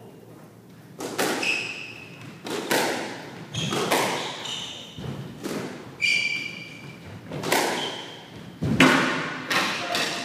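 Squash rally: the ball smacks off racquets and the court walls about a dozen times, each hit trailing off in the enclosed court's echo, with short squeaks of shoes on the wooden floor between hits.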